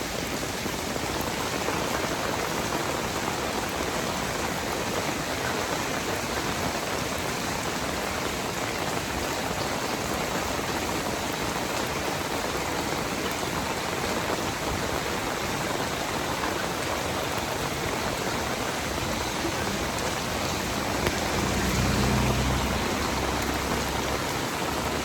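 Steady heavy rain falling, an even hiss of drops on surfaces. A brief low rumble swells and fades near the end.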